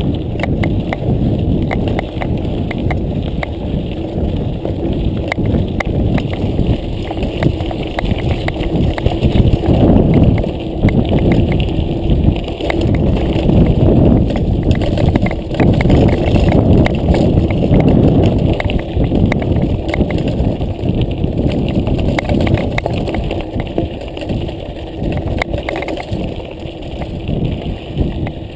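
Mountain bike riding a stony dirt track: tyres rumbling and crunching over gravel and loose stones, with a steady rattle and clatter of knocks as the bike bounces over bumps. Louder and rougher through the middle stretch.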